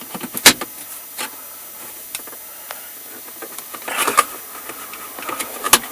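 Plastic dashboard trim panel of a Hyundai i30 being pulled off by hand: sharp cracks and snaps of its retaining clips letting go, with plastic creaking between. The loudest snaps come about half a second in and near the end, with a cluster of cracks about four seconds in. These are the normal sounds of the clips releasing, not of anything breaking.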